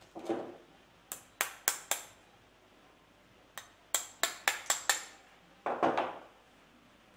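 A small hammer tapping a small metal pin, metal on metal with a short ring after each blow: four quick taps, a pause, then a faint tap and five more in quick succession. A short, duller sound comes near the start and again, louder, near the end.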